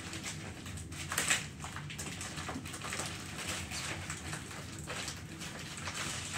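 Plastic poly mailer bag crinkling and rustling as it is handled and pulled at to get it open, in a run of short scratchy strokes with a louder crackle about a second in.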